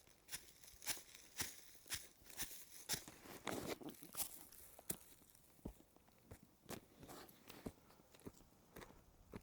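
Hiker's footsteps crunching on a dry trail, about two steps a second, louder for the first few seconds and then fainter.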